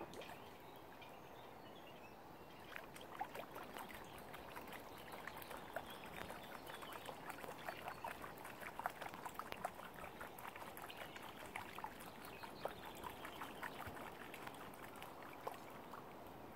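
Shallow water lapping and trickling at the water's edge, with many small irregular splashes and drips that start a couple of seconds in and continue almost to the end.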